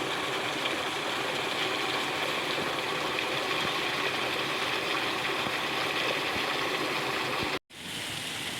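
Water gushing steadily as the pump system is drained. The flow cuts out abruptly for an instant near the end and resumes slightly quieter.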